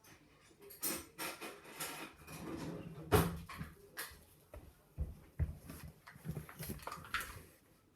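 Irregular handling noises: taps, clicks and rustles, with the loudest knock about three seconds in.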